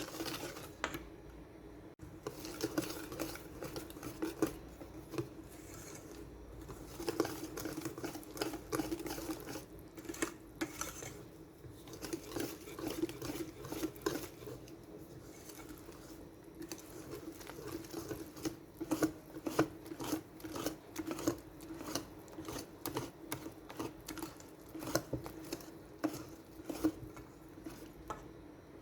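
Hand-held utensil beating and stirring ingredients in a mixing bowl, with quick, uneven clicks and scrapes against the bowl that come in fast runs throughout.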